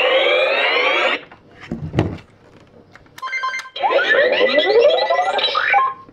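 Electronic laser-blaster sound effects from a Nerf Laser Ops Pro AlphaPoint toy blaster's speaker. There is a rising laser sweep lasting about a second, a short run of beeps about three seconds in, then a longer warbling, rising laser sound that stops near the end.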